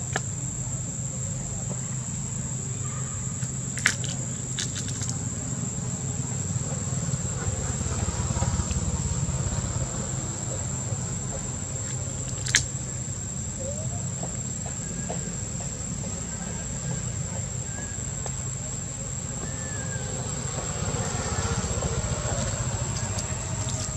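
Insects droning with one steady high-pitched tone over a low rumble, broken by a sharp click about four seconds in and another about twelve seconds in.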